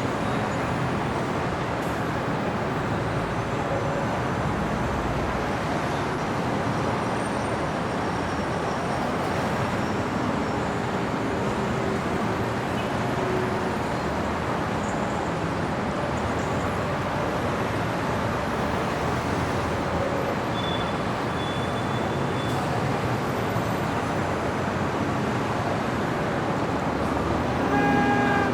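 Steady city street traffic: a continuous wash of cars and engines passing. A short car horn toot sounds near the end.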